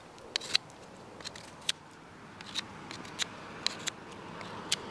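Sharp metallic clicks and ticks at irregular intervals, about a dozen, from a folding knife being handled, over a soft steady hiss.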